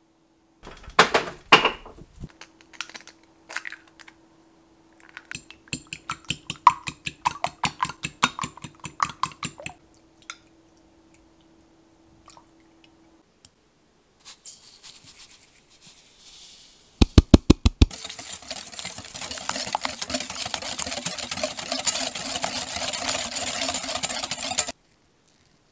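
A wire whisk beating eggs and sugar in a glass mixing bowl: a quick run of strokes, then steady fast whisking for several seconds, stopping shortly before the end. Before that come scattered light clicks and taps of kitchen utensils.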